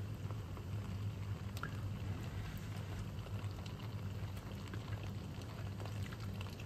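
Spaghetti in thick tomato sauce simmering in a pan, bubbling with scattered small pops over a steady low hum.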